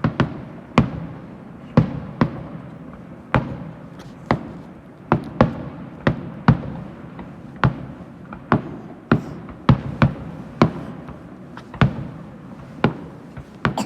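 Fireworks shells bursting in an irregular barrage: about twenty sharp bangs, one or two a second, over a continuous low rumble and crackle.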